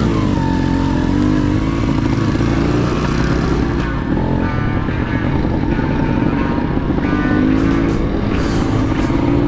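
Sherco X-Ride 290 trail motorcycle's single-cylinder two-stroke engine running under way, with music playing over it.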